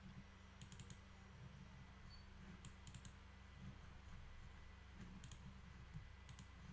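Computer mouse clicking, in small clusters of two or three quick clicks a few times, as double-clicks open folders and select files, over a faint low hum.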